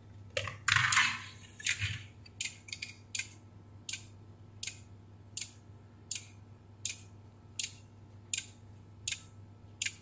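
Beko washing machine control board ticking steadily while powered, about one tick every three-quarters of a second, with no display. The repairer traces this fault to a short circuit on the DC supply bus at its ATmega64A microcontroller. Handling noise from the board being moved comes in the first two seconds.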